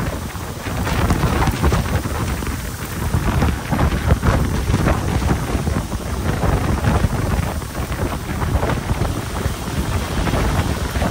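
Gravel pouring out of a dump truck's raised bed past the open tailgate: a steady, dense rattling rush of stones with a low rumble underneath.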